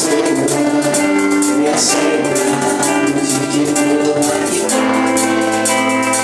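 Live worship band playing: sustained chords over steady percussion.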